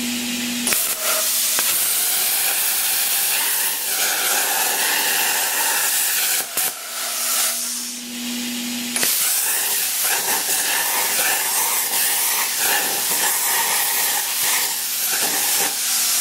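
Longevity WeldMax 164i 40-amp plasma cutter cutting quarter-inch-wall steel square tube: a loud, steady hiss of the arc and air jet. Around six and a half seconds in the hiss breaks off, leaving only a low hum, and it resumes about nine seconds in.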